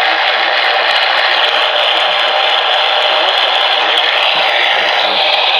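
Steady, loud radio static hiss from a receiver with no clear signal; it cut in abruptly just before.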